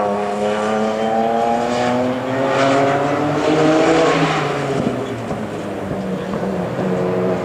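Several historic racing touring car engines running together: one holds a steady note while others rise slowly in pitch as the cars accelerate, then level off near the end.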